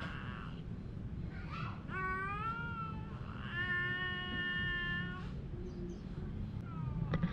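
Domestic cats in a standoff, trading drawn-out threat yowls. One call trails off at the start, a rising yowl comes about two seconds in, and a long steady one lasts nearly two seconds from about three and a half seconds in. A few short sharp sounds follow near the end.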